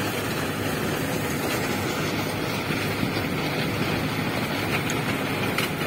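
Engine running steadily: a low, even hum under a constant rushing noise.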